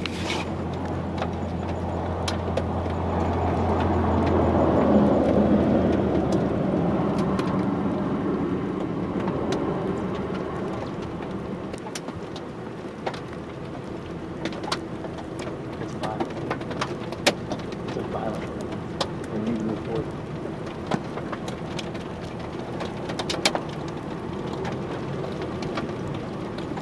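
Steady rain falling, with scattered sharp drops striking close by. A broad rumble swells and fades over the first several seconds, and a low hum stops about five seconds in.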